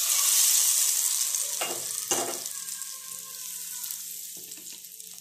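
Hot mustard oil poured onto a spiced curd-and-besan marinade, sizzling on contact. The sizzle is loudest at first and dies away gradually over a few seconds, with a couple of short knocks about two seconds in.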